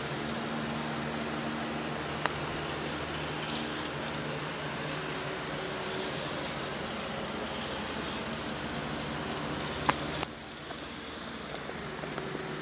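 Steady whirring hum of N-scale model trains running on a layout, with a couple of sharp clicks; the hum drops suddenly about ten seconds in.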